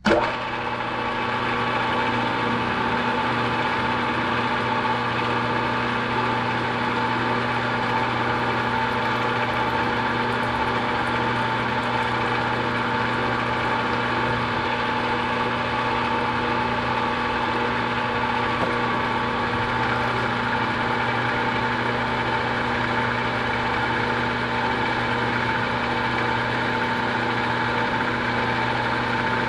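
Milling machine spindle switching on and running steadily at constant speed while a drill bit bores a hole 1 inch deep in an aluminum bar.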